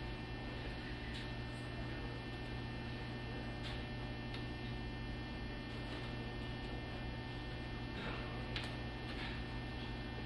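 Steady electrical mains hum under quiet room noise, with a few faint ticks.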